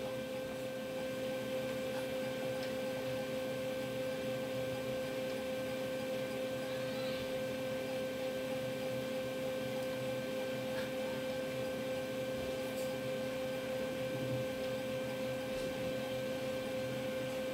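Fuji Xerox DocuPrint P205b laser printer running its Clean Developer cycle, its drive turning and mixing the toner cartridge with a steady humming whine.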